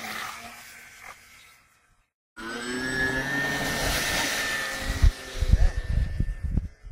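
Radio-controlled model airplane motors in two short clips cut together: a faint hum, then a louder steady whine as a high-wing model takes off and climbs away. Low thumps of wind on the microphone come in the last two seconds.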